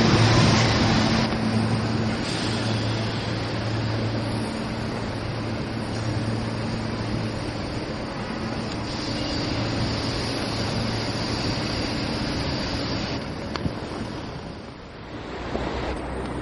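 SEPTA Silverliner V electric multiple-unit train running along the track: a steady rumble of wheels on rail with a low, wavering motor hum. It is loudest at first, dips briefly near the end, then picks up again.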